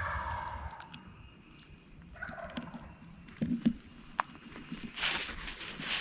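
Wild turkey gobbler gobbling: a rattling call about a second long at the start, then a shorter one a little over two seconds in. A few sharp clicks follow, and rustling near the end.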